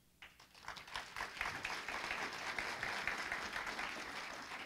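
Audience applauding: a few scattered claps about a quarter second in quickly swell into full, steady applause, which starts to thin out near the end.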